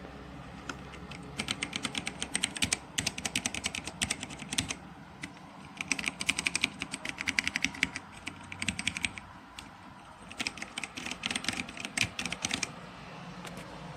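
Typing on a Dierya T68SE 60% mechanical keyboard with blue switches: three runs of rapid clicky keystrokes with short pauses between.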